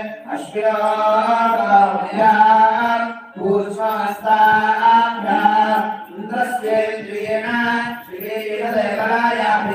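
Several voices chanting mantras in unison, in phrases of a second or two with brief breaks, over a steady drone note.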